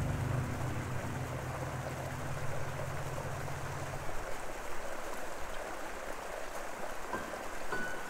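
River water rushing steadily. A low hum runs under it and stops about four seconds in.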